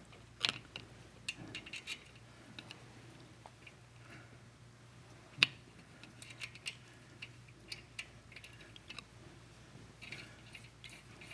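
Faint, scattered metallic clicks and clinks of hand tools on cylinder-head nuts and tab lock washers being fitted, with one sharper click about five seconds in.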